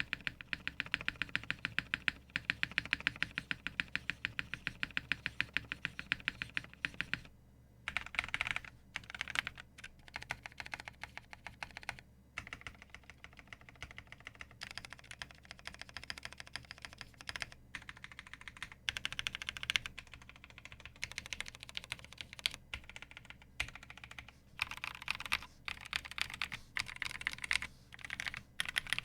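Typing on a custom mechanical keyboard: KBD8X MK II with polycarbonate case and plate, lubed NovelKeys x Kailh Cream linear switches on 65 g springs, and GMK Nautilus R2 keycaps. Fast, steady keystrokes for about seven seconds, then shorter bursts of typing with brief pauses between them.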